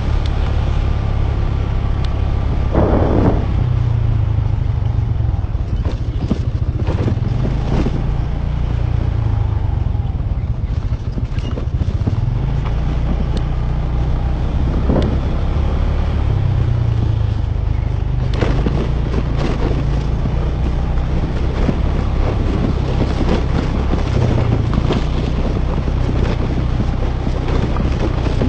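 Motorcycle running steadily while being ridden over a rough, cracked concrete road: a constant low rumble, broken by frequent knocks and rattles from the bumps, a few of them louder.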